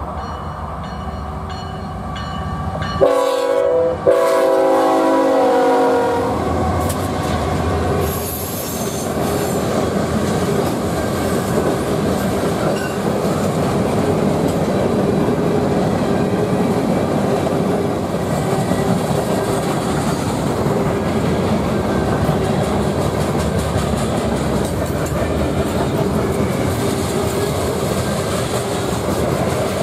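Freight train locomotive horn sounding a blast about three to six seconds in as the lead units pass. Then the steady rumble and clatter of a long string of freight cars rolling by at speed.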